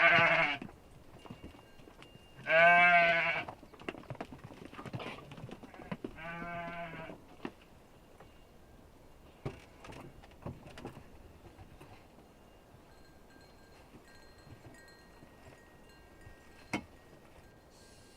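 Goats and sheep of a herded flock bleating: three wavering bleats in the first seven seconds, the first and second loud, the third fainter. After them come a few faint clicks and one sharp knock near the end.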